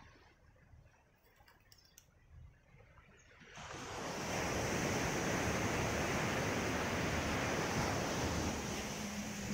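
Sea surf on a gravel beach: quiet at first, then about three and a half seconds in a wave breaks and the surf rushes up the shore in a loud, steady wash. A steady low hum joins near the end.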